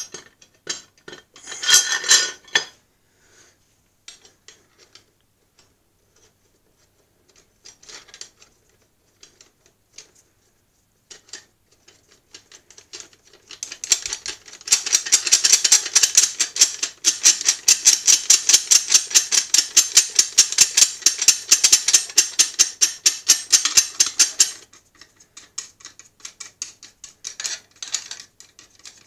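Rapid, even metallic clicking, many clicks a second, for about ten seconds from the press's top plate and rods as they are worked by hand. Scattered light knocks of metal parts come before and after it.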